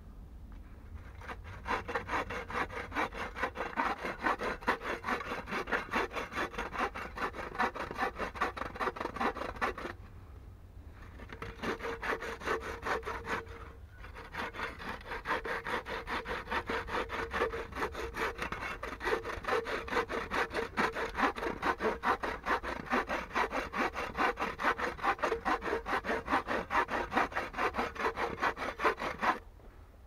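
Hand frame saw cutting across a log with fast, even back-and-forth strokes. The sawing stops for about a second a third of the way through, breaks off briefly again a few seconds later, and stops just before the end.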